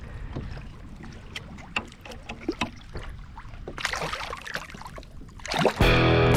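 Water splashing and small knocks as a redfish is released by hand over the side of a kayak, with the loudest splash about four seconds in as the fish kicks free. Music begins near the end.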